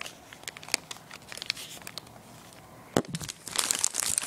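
Newspaper packing being unwrapped and crumpled. Faint scattered crinkles are followed by a sharp click about three seconds in, then steady louder crinkling of the paper.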